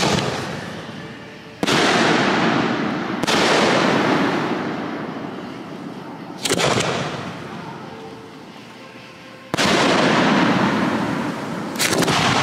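Aerial firework shells bursting: about six loud booms at uneven gaps of one to three seconds. Each boom is followed by a long echo that dies away slowly.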